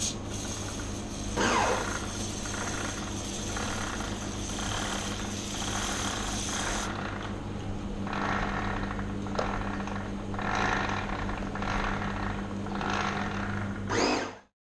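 Aerosol spray hissing onto a dirt bike's drive chain, stopping about seven seconds in, followed by a series of short mid-pitched noises roughly a second apart as the rear wheel is handled. A steady low hum runs underneath.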